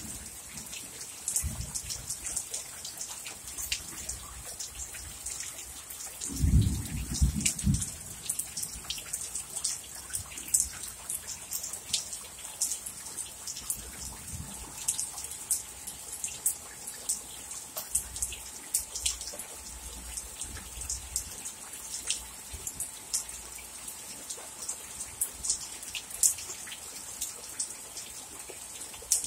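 Heavy rain pouring down: a steady hiss with frequent sharp ticks of drops striking close by. A brief low rumble comes about six seconds in.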